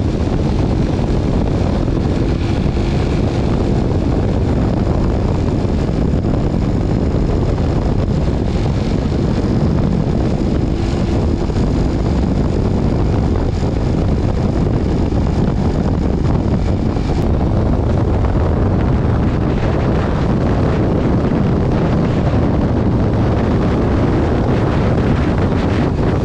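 Motorcycle running steadily at highway speed, its engine drone mixed with heavy wind noise on the action-camera microphone.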